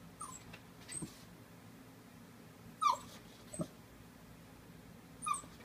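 Papillon dog whimpering in short, high squeaks, about five in a few seconds, the loudest about three seconds in: whining to wake its owner.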